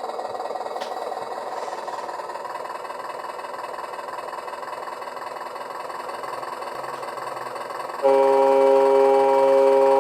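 Steady running hum, then about eight seconds in the model vaporetto's electronic boat horn sounds through its speaker: one long, loud blast of several notes held together as a chord.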